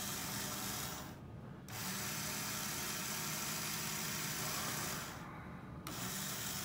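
Atlas model-railway turntable drive whirring through its gears as it slowly rotates a Walthers HO turntable bridge. The higher whir drops away briefly twice, about a second in and again near the end, while the low hum carries on.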